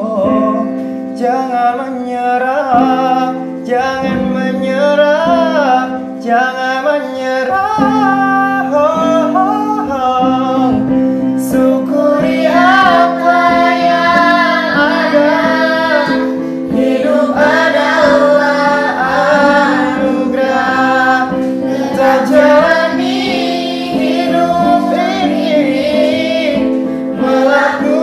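A song: a sung melody with vibrato over a steady instrumental accompaniment of sustained chords.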